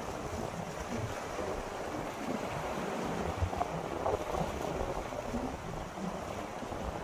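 Steady wind rushing across the microphone with the wash of open water beneath it.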